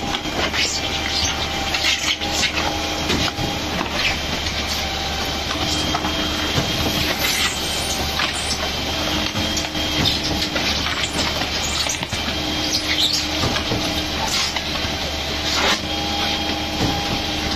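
Truck-mounted concrete mixer pump running: a steady mechanical din with frequent clanks and knocks, and a hum that cuts in and out every three seconds or so.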